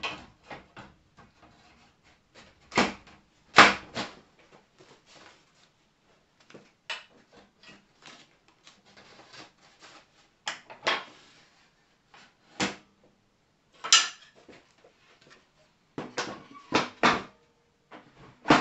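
Clunks, knocks and handling noise as the parts of a Black & Decker Workmate are fitted back in: a cable tray and a paper roll slotted under the top, then a chipboard panel laid on the bench. The knocks are irregular and scattered, the loudest about three and a half seconds in, with more near the end.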